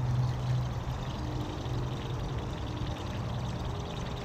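A buzz bait being retrieved on a baitcasting reel: steady gurgling and churning water, with a low hum from the cranked reel that fades about a second and a half in.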